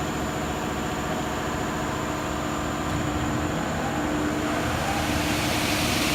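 Blade motor of a Maccom M88 double-head aluminium cutting saw running with no load: a steady mechanical hum that grows slightly louder toward the end.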